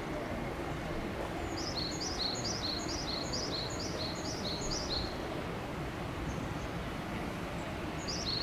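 A small songbird singing a quick run of about eight high, falling two-part notes, roughly two and a half a second, then starting the same song again near the end, over a steady outdoor background hum.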